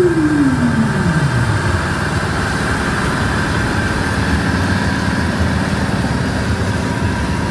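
Eicher tractor's diesel engine running hard and steady under load as it drags a tractor-pulling sled. A falling hoot slides down in pitch over the first second and a half.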